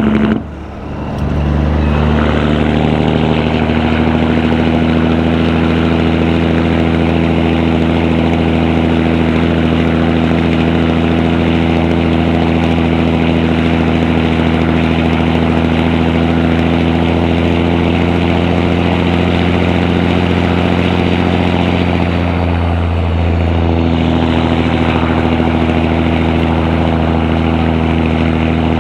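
Caterpillar 3406E diesel pulling a truck loaded to 103,000 lb gross, heard through 6-inch stacks and an Aero Turbine 5050xl muffler. Near the start the engine note drops out briefly and comes back at a lower pitch, as with an upshift. It then pulls steadily, with a short dip in the note about twenty-three seconds in.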